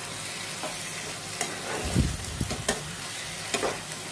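Mushrooms, onion paste and green chillies sizzling in a frying pan as a spatula stirs them, scraping and knocking against the pan several times, with a louder thud about two seconds in. The mushrooms are frying in the water they have released.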